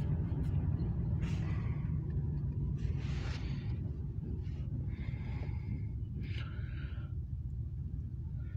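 Low, steady rumble of a freight train's diesel locomotives pulling away and slowly fading, heard muffled from inside a car, with a few brief higher-pitched noises over it.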